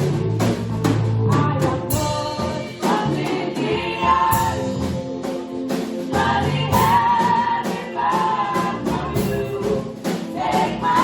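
Church choir singing a gospel song with band accompaniment, a bass line and regular drum beats under the voices.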